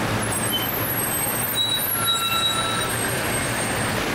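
Routemaster double-decker bus engine rumbling as the bus pulls past close by, amid steady city-street traffic noise, with a few faint brief high squeaks about halfway through.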